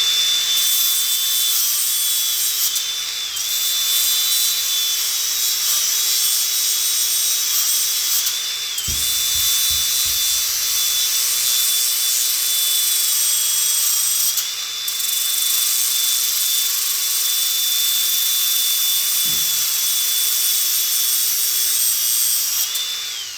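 Electric drill running steadily with a high motor whine while a flap wheel grinds down a spinning bolt, with a hissing grind over it. The whine dips briefly in pitch several times as it loads up, and there are two short knocks, one about nine seconds in and one near twenty.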